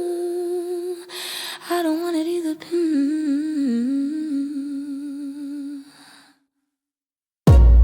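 A woman's voice humming a slow, wavering melody with vibrato as the song's closing hum, fading out about six seconds in. After a second of silence, loud music with heavy bass hits starts abruptly near the end.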